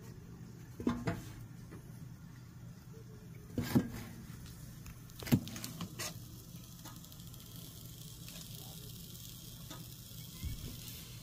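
Food sizzling on a propane camp griddle, with a few sharp knocks and clanks of a utensil, the loudest a little under four seconds in and again past five seconds.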